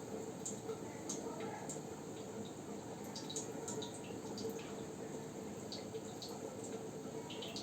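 Aquarium filter water trickling and dripping into the tank, with scattered small drips over a steady hum.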